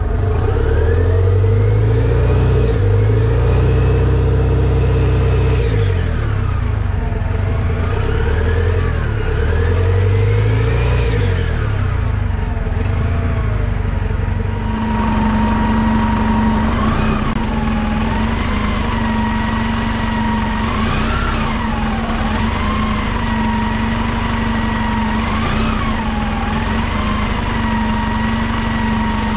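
1998 New Flyer C40LF transit bus's compressed-natural-gas engine revving up and back down twice, its pitch rising and falling. About halfway through it settles to a steady idle with a high whine.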